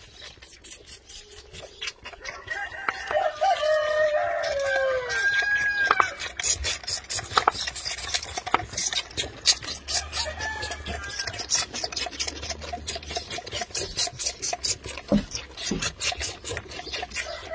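Lambs suckling hard on milk feeding bottles: a rapid run of wet sucking and slurping clicks. A rooster crows once in the background about three seconds in, the call falling away at its end.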